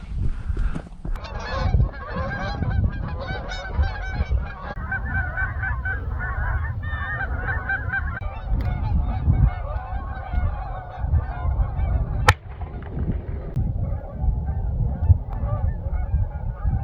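A flock of Canada geese honking, many short calls overlapping continuously and thinning out in the last few seconds, over a low rumble. A single sharp click about twelve seconds in.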